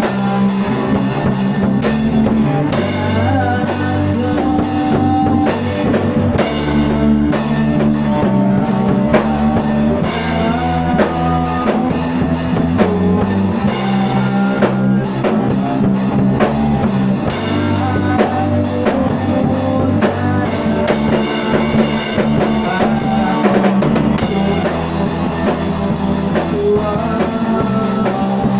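A rock band with drum kit and guitar playing a song at a steady loud level.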